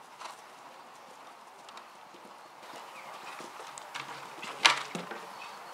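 Show-jumping horse's hoofbeats cantering on grass, with a sharp, loud knock about two-thirds of the way through as it jumps a fence.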